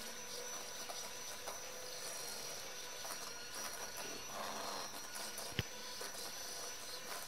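Electric hand mixer running steadily, its beaters whirring through eggs and sugar in a stainless steel bowl as they are beaten until pale. A single sharp click about five and a half seconds in.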